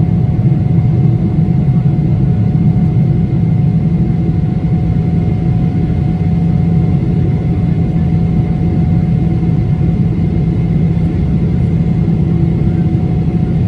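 Jet airliner cabin noise during the climb after takeoff: a loud, steady low drone of engine and airflow, with two faint steady whining tones from the engine above it.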